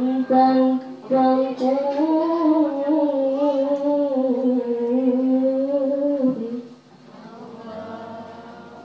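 A young girl's voice reciting the Qur'an in the melodic, sung style, holding long notes that waver and glide in pitch. About six and a half seconds in the phrase ends and the sound drops to a much quieter passage.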